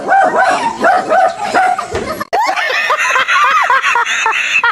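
A dog barks in alarm, quick repeated high yapping barks at about three a second, at a life-size toy lion and tiger. After a sudden break a little over two seconds in, a man and a woman laugh loudly.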